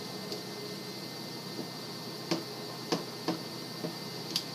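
About five light clicks and taps in the second half, from a hex key and grip screw being handled and fitted at an AR-15 pistol grip, over a steady background hiss.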